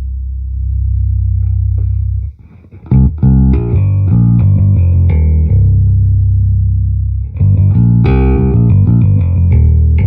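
Electric bass played through a Peavey VB-2 all-tube bass amplifier head and a 2x10 cabinet. It plays a loose line of held low notes broken by two quick runs of notes.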